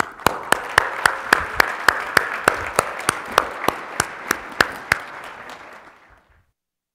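Audience applauding, with one pair of hands clapping close and sharp about four times a second over it. The applause dies away about six seconds in.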